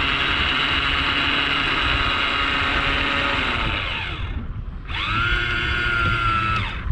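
An electric motor whining under load, running steadily for about four seconds, stopping, then spinning up again with a rising pitch and running for another two seconds before winding down.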